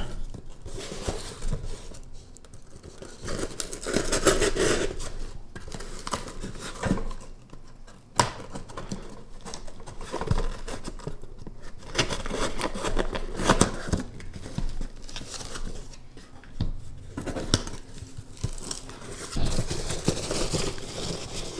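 A folding pocket knife's blade slicing through packing tape on a cardboard shipping box, with the cardboard scraped, flexed and torn as the box is opened, in irregular rasps and clicks. Near the end, a hand rustles through foam packing peanuts.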